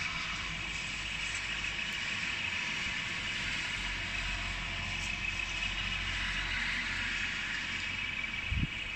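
Steady rain with a car passing on the wet road, its tyre hiss and engine rumble swelling and fading. A brief low thump comes near the end.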